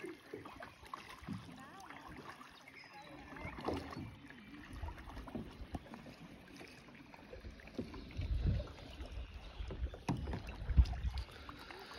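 Faint sounds of a kayak out on calm water: paddle strokes dipping and splashing, with a few low knocks and bumps now and then.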